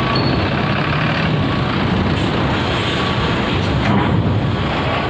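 Large coach buses' diesel engines running steadily at low speed, with a short air hiss about two seconds in.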